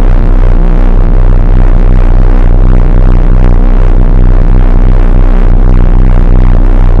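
Loudspeaker giving off a loud, distorted, low throbbing buzz: a steady deep hum with a fast pulsing texture that does not let up.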